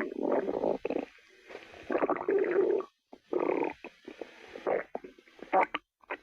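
Stomach growling: several gurgling rumbles with short breaks between them.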